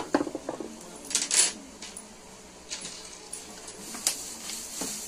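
Parts of a mesh-back office chair handled during assembly: a sharp click at the start, a quick rattle of small knocks just after, then scattered clicks and knocks of plastic and metal pieces.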